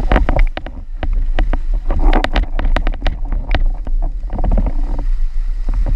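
Windsurf board planing over choppy water: chop slapping the board in many quick, irregular knocks and spray hissing, with wind buffeting the sail-mounted GoPro's microphone as a constant low rumble.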